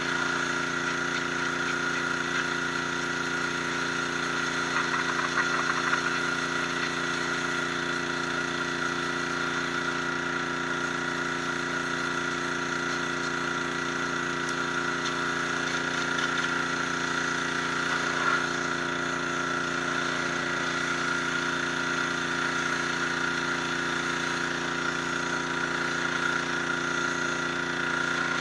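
High-pressure washer running steadily: the motor and pump drone while the water jet hisses against stone.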